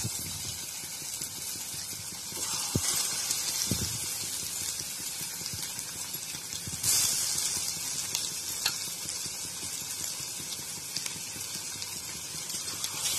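Marinated chicken pieces deep-frying in hot oil in an aluminium kadai: a steady sizzle that swells into louder hissing each time another piece is dropped in, twice in the middle and again near the end. A few light knocks of a spoon against the bowl and pan.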